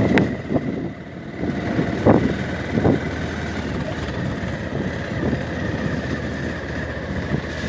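Motorcycle engine running at low speed on a rough dirt track, with a few brief knocks from the bumps.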